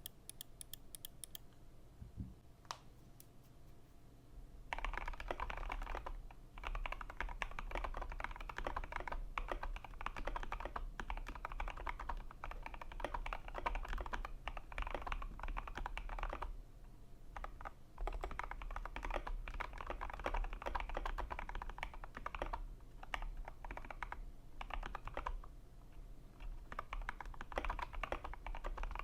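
Custom KBD75v3 mechanical keyboard with a copper plate, foam inside and lubed Kailh Cream linear switches being typed on: a fast run of key presses. The typing starts about five seconds in, with a short pause a little past halfway.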